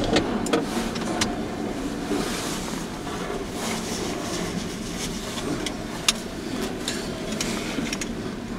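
Steady low rumble of a nearby freight train, with scattered sharp clanks and knocks, the loudest about six seconds in.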